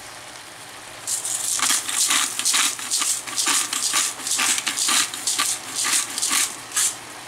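Linguine and littleneck clams being stirred and tossed with a utensil in a hot pot: a quick run of scraping, clinking strokes, two or three a second, starting about a second in, over a soft sizzle.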